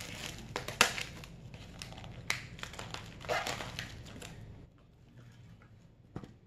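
Plastic film on a supermarket meat tray crinkling and tearing as the package is pulled open, with many sharp clicks and crackles. It goes quieter after about four and a half seconds, with one sharp click near the end.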